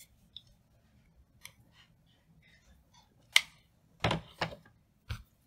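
Scattered short clicks and taps from hands working a ribbon around a crinoline bow on a cutting mat. There are a few faint ticks at first, a sharp click about three and a half seconds in, then several more close together near the end.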